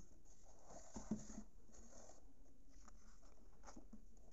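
Faint handling of the paper calendar pages: soft rustling and scraping of the paper, with a small tap about a second in.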